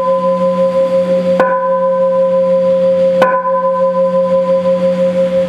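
A deep-toned bell is struck twice, about two seconds apart, and keeps ringing with a long, steady hum. It is rung at the elevation of the chalice during the consecration at Mass.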